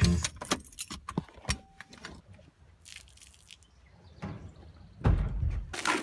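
Handling noise inside a parked car: a run of light clicks and rattles, then a loud low thump about five seconds in.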